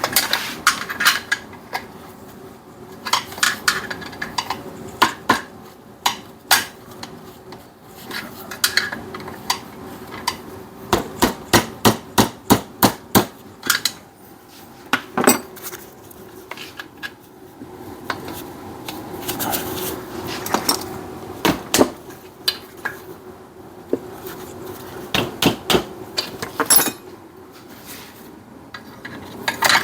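Metal hand tools clinking, knocking and tapping on engine parts, with a fast run of about a dozen sharp taps about halfway through, over a faint steady hum.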